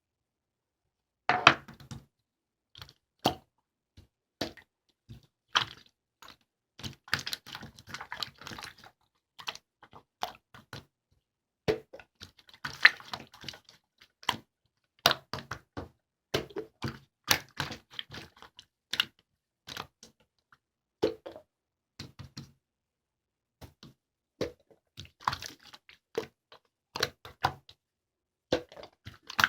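Slime being squeezed and poked by hand, making irregular clicks and pops, sometimes in quick clusters, with brief pauses between.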